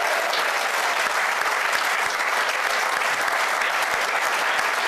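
Studio audience applauding steadily, a dense, even clapping from many hands.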